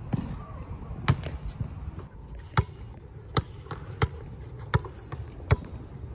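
Basketball bouncing on an outdoor hard court: a few separate bounces at first, then a steady dribble of about one bounce every three quarters of a second.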